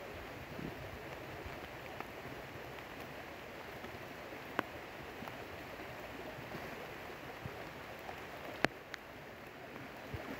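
Steady rush of a swollen, muddy stream flowing past, with two faint sharp clicks, one midway and one near the end.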